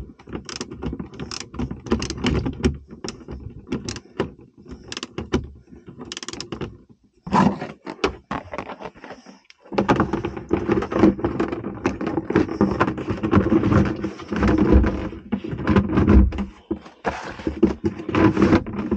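Pliers clicking and clinking on a metal battery terminal as the negative cable is tightened, then a hard plastic battery box lid scraping and knocking as it is worked down over the battery.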